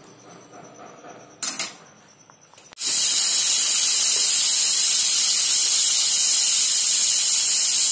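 Pressure cooker whistle: steam jetting out under the weight valve as a loud, steady hiss that starts about three seconds in, the sign that the cooker has come up to pressure (the one whistle the recipe calls for). A short knock comes about a second and a half in.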